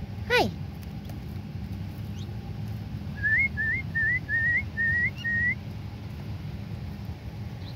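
Young birds calling: one quick falling squeal just after the start, then a run of six short, rising whistled notes evenly spaced about half a second apart, with faint high peeps between.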